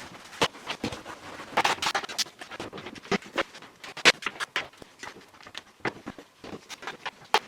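Irregular clicks, knocks and short scrapes of hand work on a car, with the loudest knock about four seconds in.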